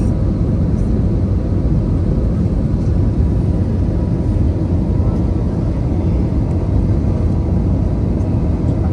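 Steady in-flight cabin noise of an Airbus A320-214, heard from a window seat over the wing: an even, low rumble of its CFM56 engines and the airflow past the fuselage, with a faint steady hum on top.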